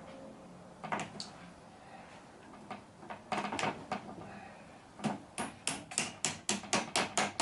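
Hand work on a retractable screen's housing end while the boot is fitted: a few scattered knocks, then from about five seconds in a quick, even run of sharp taps, about five a second.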